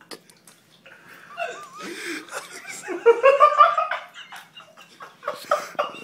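Laughter that builds over the first few seconds, then breaks near the end into short rhythmic bursts of about three a second. A few small crinkles and clicks of torn ketchup packets come in the first second.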